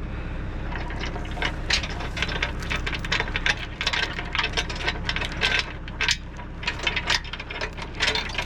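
Irregular run of small metallic clinks and rattles, like chains or latch hardware being handled, over a steady low engine hum.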